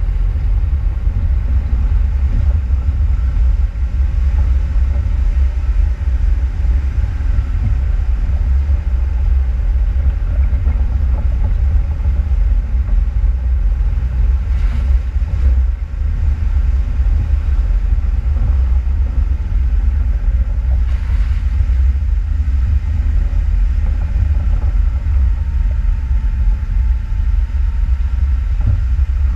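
Off-road vehicle driving, a steady, loud low rumble throughout, with a faint whine coming in near the end.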